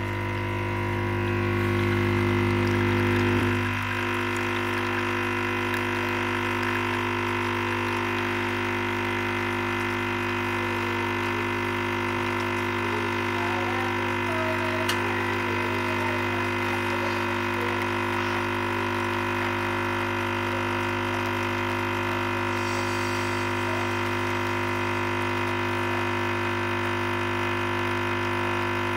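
La Cimbali Junior espresso machine's pump humming steadily as a double shot extracts. The hum is louder for the first few seconds, then drops to a steady level about four seconds in.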